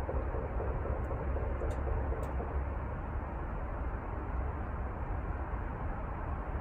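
Steady background noise: a low rumble with a hiss over it, a faint hum in the first couple of seconds, and a few faint ticks.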